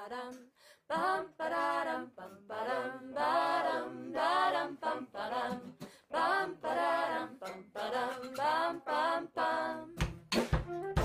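Intro jingle: a voice sings short phrases over a low steady hum. Near the end, sharp plucked strokes come in as instrumental music begins.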